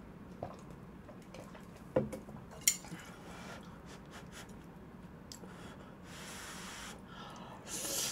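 Soft eating sounds from a person eating Chapagetti noodles close to the microphone: a few light clicks and taps, then breathy, hissing noises in the last two seconds.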